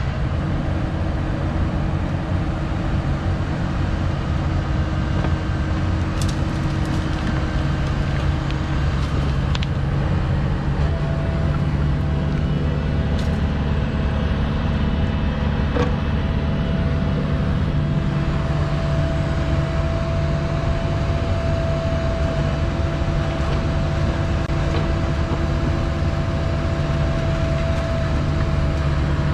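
Cat mini excavator's diesel engine running steadily. A steady higher whine joins about a third of the way in, and there are a few light clicks.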